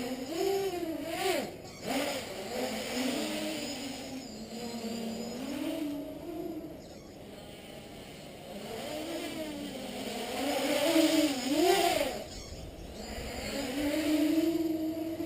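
Leap 3D quadcopter's electric motors and propellers whining in flight, the pitch swinging up and down as the throttle changes, loudest in surges about two-thirds of the way in and near the end.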